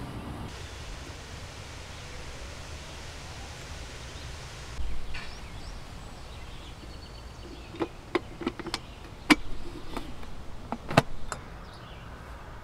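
Steady outdoor background hiss, with a dull thump about five seconds in. Then a quick run of sharp clicks and knocks over a few seconds, the loudest near the end: hands handling and adjusting a 4x5 large-format view camera.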